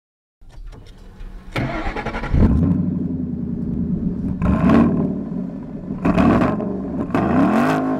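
Car engine starting about two seconds in, then revved three times, the last a longer rev rising in pitch near the end.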